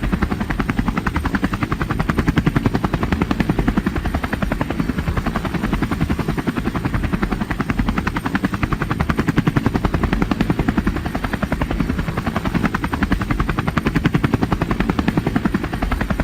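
Helicopter rotor beating in a rapid, even chop, with the loudness swelling slightly a few times.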